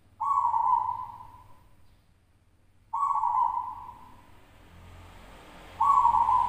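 Zebra dove (local Indonesian perkutut) cooing: three phrases about three seconds apart, each starting abruptly on one steady pitch and fading over about a second.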